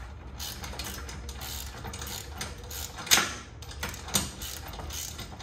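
Hand socket ratchet clicking in short, fairly regular runs as nuts are run down onto the bolts of a seat swivel base, with a sharper metal knock about three seconds in and another about a second later.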